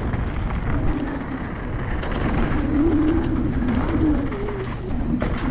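Santa Cruz V10 downhill mountain bike rolling fast down a dirt trail, heard from a rider-mounted camera: a steady rush of wind on the microphone mixed with knobbly tyres running over dirt and a few small knocks from the bike.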